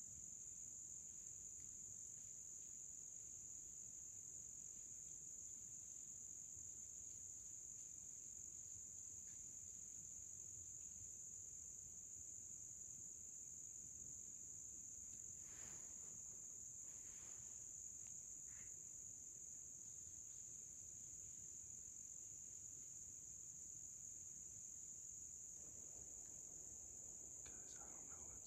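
Steady insect chorus: a continuous high-pitched drone that never lets up, with a few faint brief sounds in the middle and near the end.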